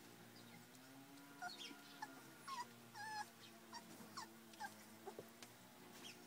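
Young puppies whimpering: a string of short, high, falling squeaks, about a dozen, in the middle of the stretch.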